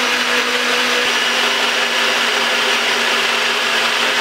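Nutribullet blender motor running steadily at full speed with a steady hum, spinning a green smoothie of fruit, ice and water that is already blended smooth.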